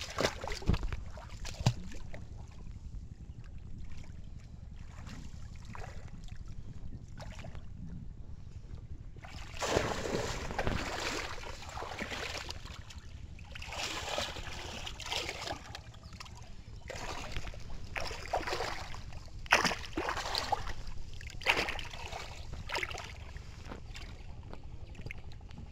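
Water splashing and sloshing as a bamboo cone-shaped fish trap is plunged into shallow water and a hand gropes about inside it for fish, in irregular bursts: near the start, around ten seconds in, and again and again through the second half.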